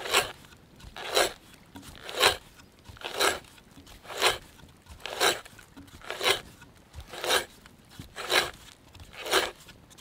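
Spiral auger bit boring by hand into a log, the cutting edge crunching and scraping through the wood in regular strokes about once a second.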